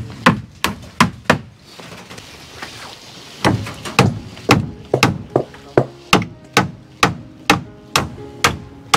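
Hammer blows on wooden planks over the bridge-deck rebar: a few strikes, a pause of about two seconds, then a steady run of about two strikes a second.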